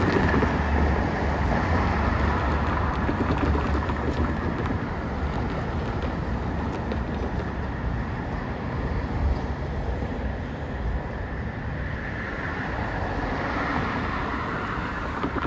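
Freight train rolling slowly past a crossing: a steady low rumble that eases off slightly towards the end.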